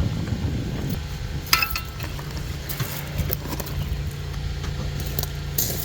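Backup generator engine running with a steady low hum, with a few sharp metallic clinks of tools being handled, one about a second and a half in and another near the end.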